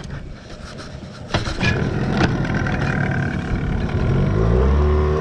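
A 15 hp outboard motor running. Its pitch rises as it speeds up about four seconds in, then holds steady. There are a couple of knocks earlier on.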